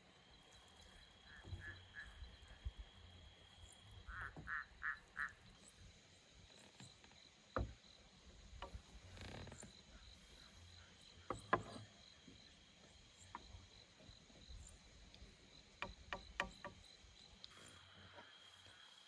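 Scattered knocks and clacks of wooden plates, wooden cutlery and a small aluminium cooking pot being set down on a wooden table, the loudest about a third of the way in, midway, and twice close together near the end. Behind them a faint steady high whine, and twice in the first five seconds a short run of four quick pulsed calls, like a frog croaking.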